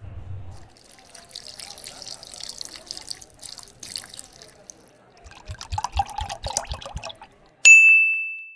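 Cartoon sound effects: a short low thud as the switch flips, a stretch of crackling hiss, a quick run of low thumps, then a loud bright ding about a second before the end that rings and fades.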